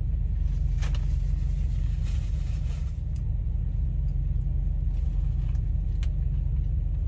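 Idling semi-truck engine, a steady low rumble, with a few faint clicks over it.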